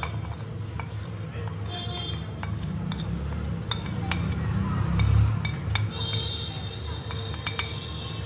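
A metal spoon scrapes and clinks against a porcelain plate and a glass bowl, tapping powdered spices off the plate into the glass. There are many short clicks, and a few clinks ring briefly, over a steady low hum.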